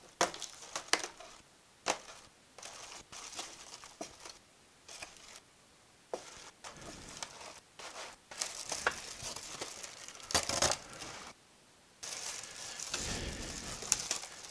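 Unpacking noise: white styrofoam packing inserts rubbing and scraping against a cardboard box as they are handled and lifted out, in irregular rustles and small knocks, with longer rustles about ten seconds in and again near the end.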